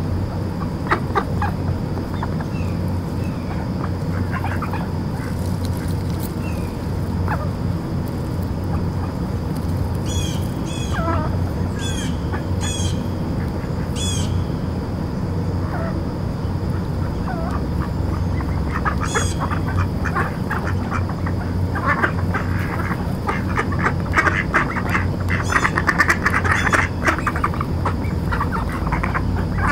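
Mallards quacking and chattering as they feed, with scattered calls at first and a busier, louder run of short calls in the last several seconds.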